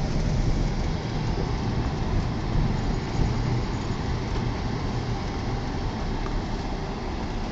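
A car driving, heard from inside the cabin: a steady low rumble of engine and tyre noise that holds an even level throughout.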